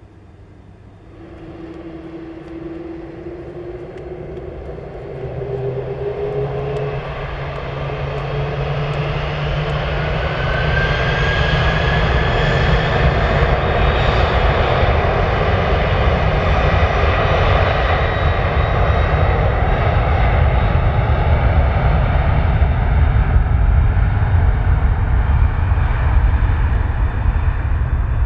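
Airbus A300-600R's General Electric CF6-80C2 turbofan engines spooling up to takeoff thrust. A rising whine sets in about a second in and swells over roughly ten seconds, then holds as a loud, steady engine noise while the airliner starts its takeoff roll.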